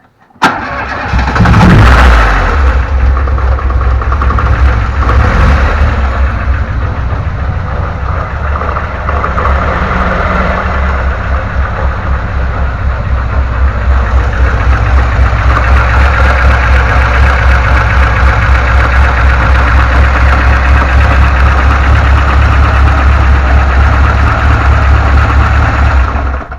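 VAZ-2106 (Lada) inline-four engine starting about half a second in, revving briefly, then idling with a regular knock from the timing-chain area. The uploader names a broken crankshaft key as the cause of the knock.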